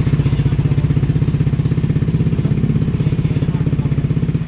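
Honda Vario scooter's single-cylinder engine running steadily through an F2Racing SS-type aftermarket exhaust, with an even, pulsing exhaust beat.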